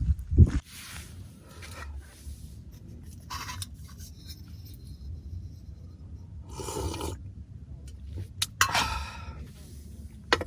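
Short rustling and scraping sounds from camping gear being handled, in four or five brief bursts over a steady low rumble.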